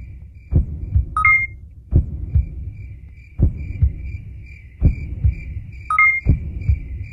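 Electronic soundtrack of low double thumps in a heartbeat rhythm, five beats about a second and a half apart, over a faint high tone that pulses several times a second. A short rising two-note beep sounds twice, about a second in and near the end.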